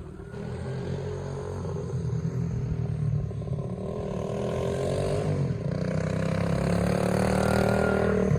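A vehicle engine running on the move, its pitch dipping and rising again about halfway through as it changes speed, growing louder towards the end.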